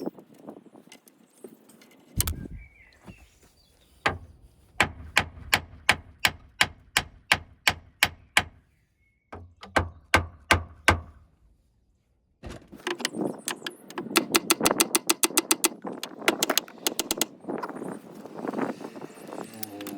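Hand ratchet clicking in steady series while a bolt on a Peugeot 206's front spring and strut assembly is worked: sharp clicks about two to three a second from about four seconds in, a short pause, then a faster, denser run of clicks.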